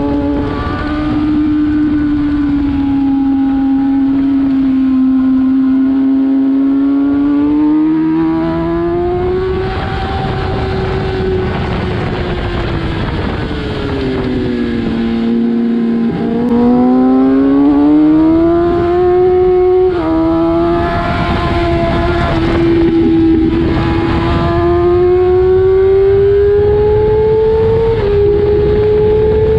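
Kawasaki ZX-6R inline-four engine at high revs on a racetrack. Its pitch climbs and falls as the bike accelerates and slows, sinking low about halfway through before climbing again, with small drops near the end where it shifts up a gear. Wind buffets the microphone throughout.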